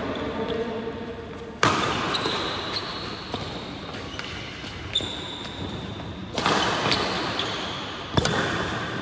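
Badminton rally: rackets strike the shuttlecock in sharp hits, the loudest about one and a half seconds in, about six and a half seconds in and just after eight seconds, with lighter hits between. Short squeaks of shoes on the court floor come in between the hits. Each hit echoes in the large hall.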